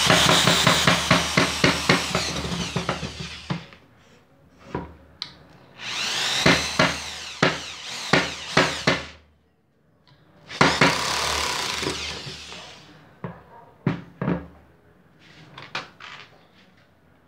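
Bosch GSR 7-14 E corded drill/driver driving screws into wood in three runs of a few seconds each. A rapid ticking sounds through each run, the motor's pitch shifts as it loads, and a few knocks and clicks follow near the end.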